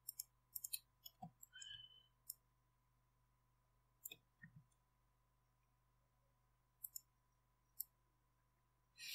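Faint, scattered clicks of a computer mouse and keyboard, about a dozen spread over several seconds, over a low steady hum.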